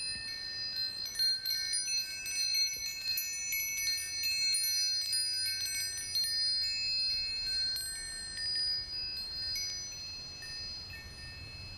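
Wind chimes ringing, with many quick high strikes overlapping through the first nine seconds or so, then thinning out and dying away. A faint low rumble runs underneath.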